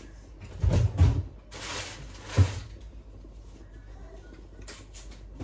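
Kitchen handling sounds: a few dull, heavy thumps and knocks, two close together about a second in and another a little later, with a brief rustle between them.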